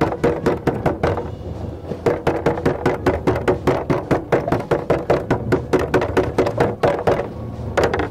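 Metal meat mallet beating a strip of thawed squid on a plastic tray: quick repeated knocks, about five a second, with a short pause about a second in and a stop near the end. The pounding tenderizes the squid to make it softer and juicier as bait.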